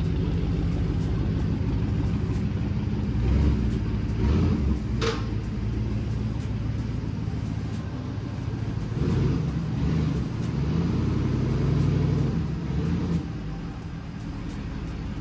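A 1999 Chevy Silverado's 5.3-litre V8, with shorty headers and a true dual straight-pipe exhaust, running at low speed, its note rising and falling slightly near the middle. A single sharp click about five seconds in.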